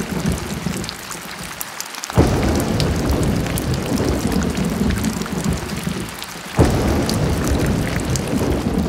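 Heavy thunderstorm: rain hissing steadily under a deep thunder rumble. The rumble comes in suddenly and loud twice, about two seconds in and again about six and a half seconds in.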